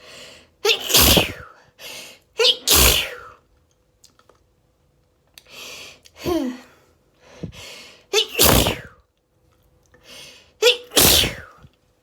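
A person sneezing over and over in an allergy sneezing fit: four loud sneezes, each after a quick gasping in-breath, with a weaker one midway.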